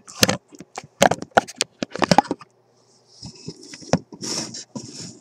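A quick run of sharp clicks and taps from small hand tools and component leads working against a metal radio chassis, then about two seconds of scraping and rustling.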